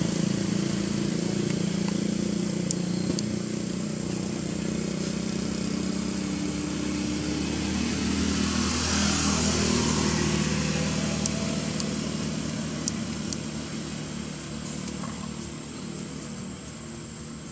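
Motor vehicle engines humming steadily, growing louder around the middle and fading toward the end, with a few faint clicks.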